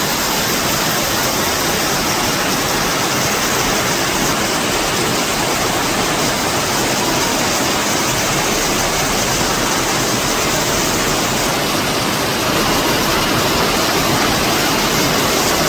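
Heavy rain falling as a steady, dense hiss, growing slightly louder about twelve seconds in.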